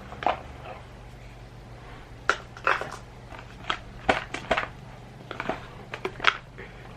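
Phone-box packaging being handled: irregular short clicks and rustles of cardboard and plastic, over a low steady hum.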